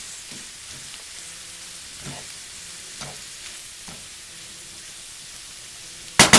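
Leeks and onions sweating in butter in a skillet, sizzling steadily while a wooden spoon stirs them, with a few light scrapes. A sharp, loud knock sounds near the end.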